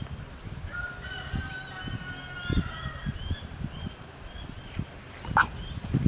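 A rooster crowing faintly, one long call about a second in, with small birds chirping and scattered low thumps.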